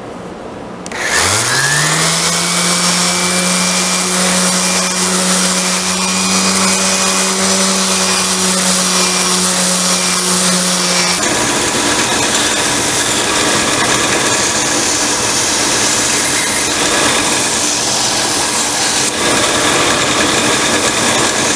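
Random orbital sander starting up with a rising whine that settles into a steady run while sanding the corners of a wooden hammer handle. About halfway through the sound changes abruptly to a different, noisier steady run of a bench-top sander.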